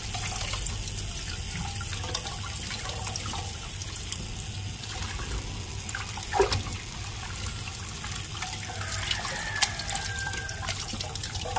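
Tap water running into a stainless steel sink as raw chicken egg bag is rinsed and worked by hand in a metal mesh strainer, with a few light knocks along the way.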